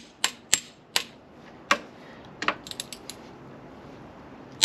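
Torque wrench with a spline socket tightening a Jake brake housing bolt on a Cummins M11 engine: a few sharp metallic clicks, then a quick run of lighter ticks about halfway through. The wrench is set to 60 ft-lb.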